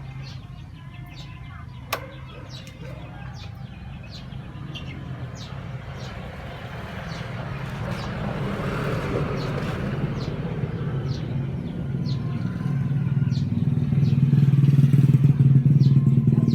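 An engine running steadily with a low hum that grows louder toward the end, with a single sharp click about two seconds in.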